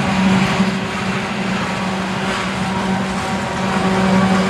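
Union Pacific diesel locomotive at the end of a coal train rolling past, its engine running with a steady low hum over the rumble of wheels on the rails.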